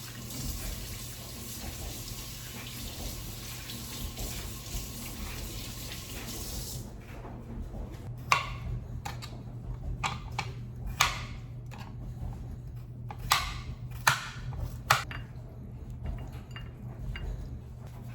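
A tap running into a sink for about seven seconds, then turned off, followed by a series of sharp clinks and knocks of dishes being handled.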